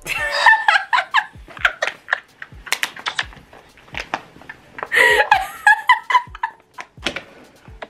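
Scattered, irregular sharp clicks and taps, with two short stretches of voice, one at the start and one about five seconds in.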